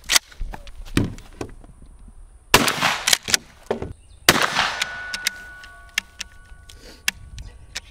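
Two loud pump-action 12-gauge shotgun blasts about two seconds apart, the second trailing off with a faint ringing. Sharp clicks and clacks of shotgun actions being worked.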